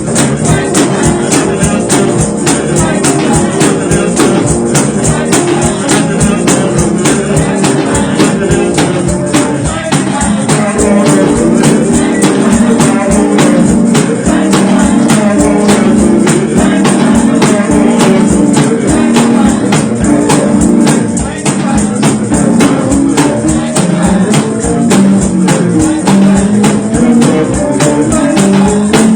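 Gospel church music with a tambourine shaken and struck on a steady fast beat, over instruments and voices singing.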